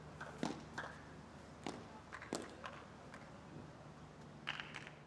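Faint court sound between points on a clay tennis court: scattered sharp knocks and taps, irregularly spaced, over a low steady hum.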